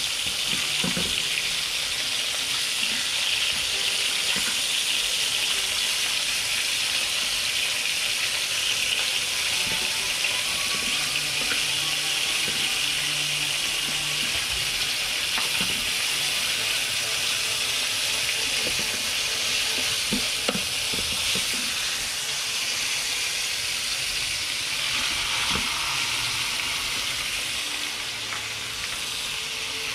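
Food sizzling in a frying pan, a steady hiss, with a few light knocks of a utensil or pan now and then.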